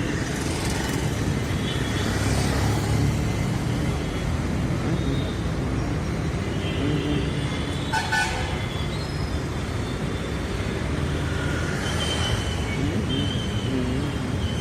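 City road traffic: a steady rumble of vehicle engines and tyres, with car horns tooting now and then, the most prominent a short blast about eight seconds in.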